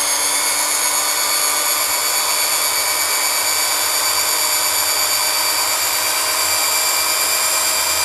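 Electric hand drill running steadily with a whine, spinning an electric power-steering motor armature while a flat file is held against its copper commutator. The file scrapes the badly pitted, worn commutator clean, like turning it on a lathe.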